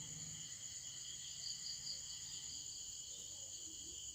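Crickets chirping, a faint, steady high-pitched chorus of several overlapping trills.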